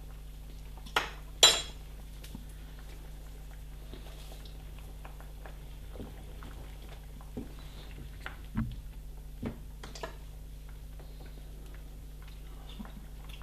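A spoon knocking and clinking against a pot of soup during stirring: two sharp clinks about a second in, then a few fainter knocks, over a steady low hum.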